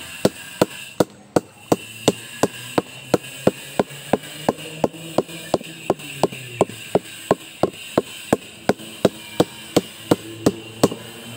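Sugar palm (aren) flower stalk being beaten lightly and steadily, about three even knocks a second. The beating bruises the stalk so that it will yield palm sap (nira) when tapped.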